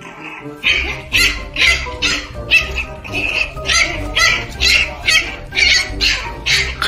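Background music with a steady beat, about two and a half strokes a second, and a bass line that comes in about half a second in.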